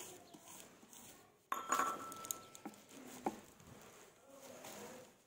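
Thin plastic sheet crinkling and rustling as hands press a ball of papad dough flat on a wooden board. About a second and a half in comes a sudden clink with a short ringing tone, followed by a couple of light knocks.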